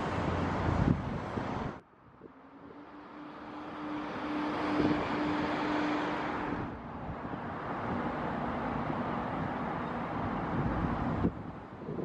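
Road traffic noise in the open air, broken off sharply about two seconds in and again near the end. In the middle a vehicle's engine hum swells and then fades.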